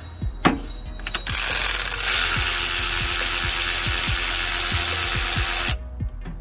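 Cordless electric ratchet with a 13 mm socket spinning out an AC compressor mounting bolt. It starts just over a second in and runs steadily with a regular ticking for about four and a half seconds, then stops shortly before the end.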